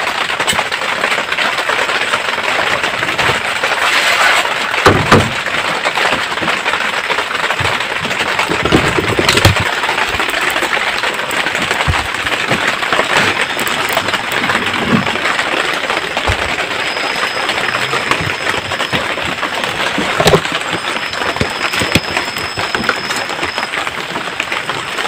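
Light rain falling steadily, a constant hiss, broken by a few sharp knocks about 5, 9 and 20 seconds in.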